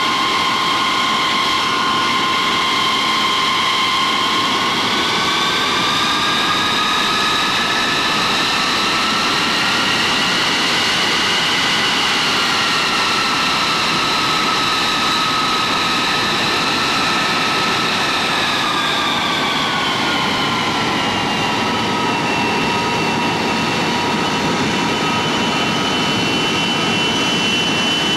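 North American F-100F Super Sabre's Pratt & Whitney J57 turbojet running on the ground, a loud steady jet whine with several high tones. The whine rises in pitch about five seconds in as the engine spools up, holds there, then falls back to a lower steady pitch about twenty seconds in.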